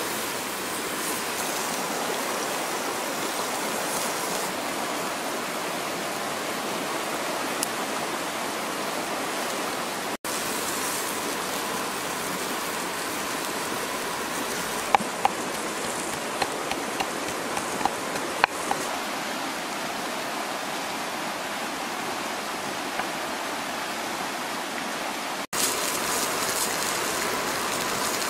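Rushing river water, a steady hiss, with a few sharp clicks about halfway through.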